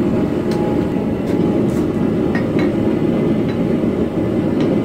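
Steady low roar of a lit propane gas forge, with several light, irregular hammer strikes on hot steel on the anvil.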